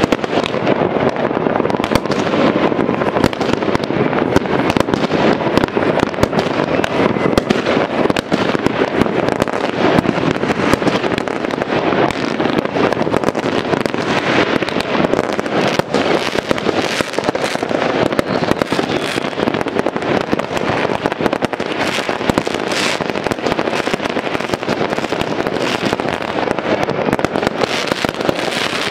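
Many aerial fireworks going off at once: a dense, unbroken crackle of bangs and pops that holds steady throughout.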